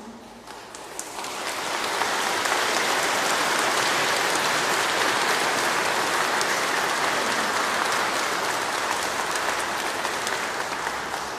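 A large church congregation applauding: the clapping builds up over about a second and a half, holds steady, then tapers off near the end.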